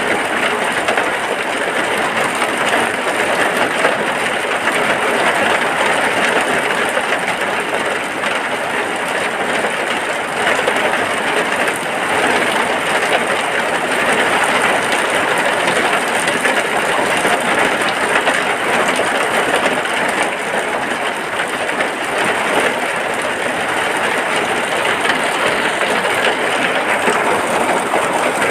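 Steady rain falling on a hut's roof, a dense even patter with no let-up.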